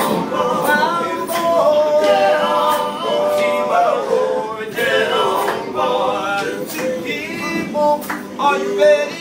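A small group of men singing gospel a cappella in harmony, with sharp clicks at a steady beat.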